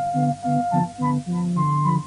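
Instrumental film score: short repeated chords, about three a second, under a long held high note.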